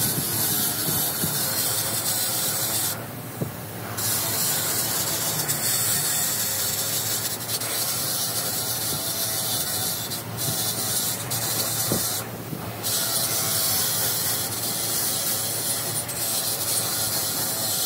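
Bench grinder's wire wheel brushing a cast metal starter motor housing clean: a steady scraping hiss that drops off briefly twice as the part is lifted from the wheel.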